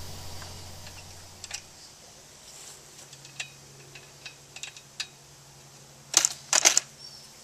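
Metallic clicks and clacks of an M60D machine gun being handled on its mount, with a few scattered small clicks and then two loud, sharp clacks about six seconds in.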